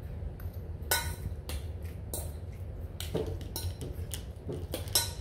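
A metal utensil clinking against a stainless steel mixing bowl while stirring raw steak tartare: a series of sharp, irregular clinks, the loudest about a second in and near the end, over a low steady hum.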